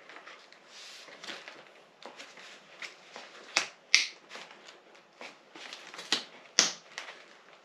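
Product packaging being handled and opened: scattered crinkling and rustling with several sharp clicks and snaps, the loudest a few seconds in.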